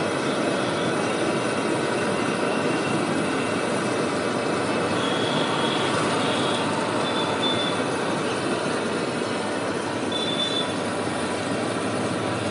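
Battered fuluri fritters deep-frying in a large iron kadai of hot oil: a steady sizzling hiss. Faint, high whistle-like tones come and go about halfway through and again a little later.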